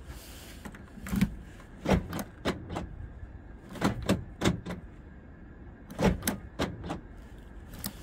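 Volkswagen Polo door locks clicking and clunking as the key is turned back and forth in the freshly repaired lock cylinder, in about five quick groups of clicks: the repaired cylinder is now working the lock.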